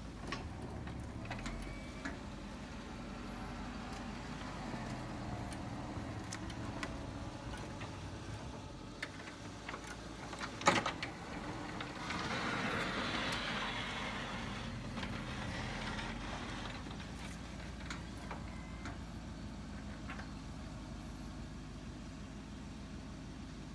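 Engine of an old square-body pickup running steadily as it plows snow, with one sharp clank about ten and a half seconds in. Just after, a louder rushing noise swells for a few seconds as the plow blade pushes snow, then fades back to the engine.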